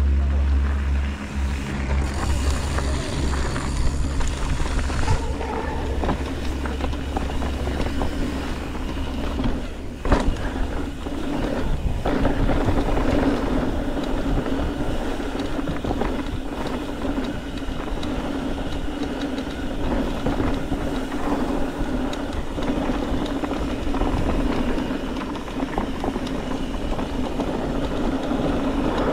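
Mountain bike descending a dirt trail: wind rushing over the handlebar-mounted camera's microphone, with tyres running on dirt and the bike rattling and knocking over bumps.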